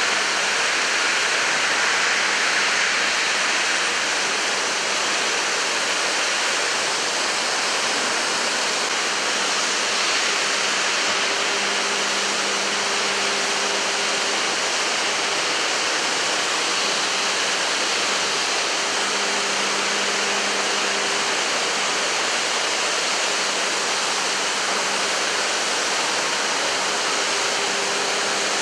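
Droop & Rein D 175 v horizontal boring and milling machine running: a steady rushing noise, with a low hum that fades in and out a few times.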